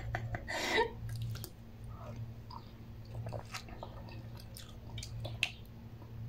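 A person chewing a mouthful of instant noodles with her mouth closed, with soft wet mouth sounds and a few small clicks, after a short breathy laugh at the start. A steady low hum runs underneath.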